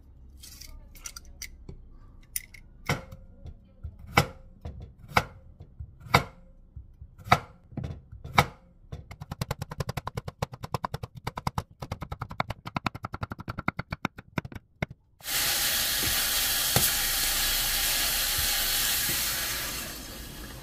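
Chef's knife chopping on a wooden cutting board: single chops about once a second, then rapid slicing of a zucchini into rounds, several cuts a second. About fifteen seconds in, this gives way to a steady loud hiss lasting about five seconds.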